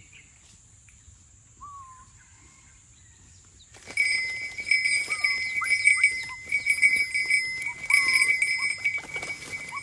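White-breasted waterhen calling: a few short faint notes at first, then about four seconds in a loud, harsh, pulsing call that keeps repeating.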